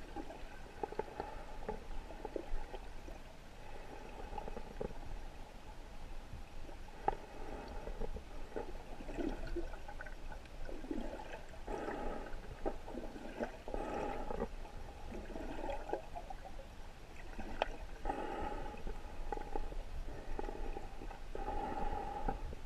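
River current heard underwater: irregular, muffled gurgling and bubbling over a rocky riverbed, with a few scattered sharp clicks.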